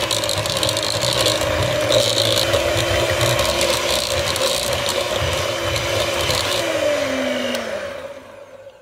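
Electric hand mixer running at speed, its twin beaters churning a thick, gritty batter of ground almonds and chopped walnuts with a scratchy clatter. Near the end the motor winds down, its hum falling in pitch before it stops.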